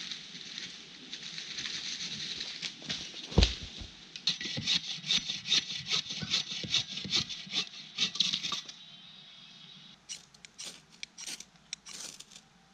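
Hand saw cutting a log of firewood in steady, repeated back-and-forth strokes, with one heavy thump a few seconds in. Near the end the sawing gives way to short scraping clicks of a knife working a piece of wood.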